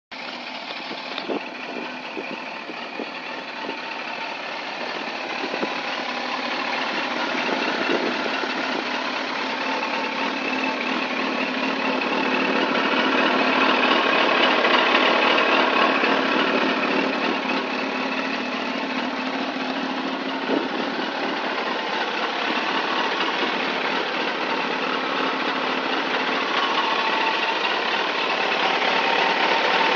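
Suzuki GSX-R1000 K1's inline-four engine running steadily at idle, growing somewhat louder over the half minute, with a few light clicks in the first twenty seconds.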